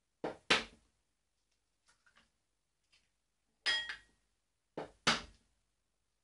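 Hen's eggs knocked against the rim of a plastic mixing bowl to crack them open: a pair of sharp knocks at the start, a single knock a little past the middle, and another pair near the end.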